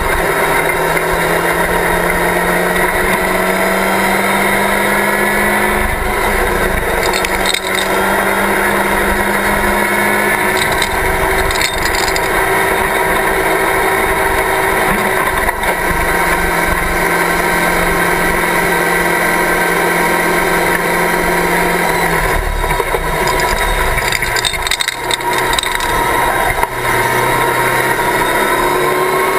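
Locost race car's engine running hard at speed, heard from the open cockpit: the revs climb slowly and drop back several times, with a few quick dips about 24 to 27 seconds in, over a steady rush of wind and road noise.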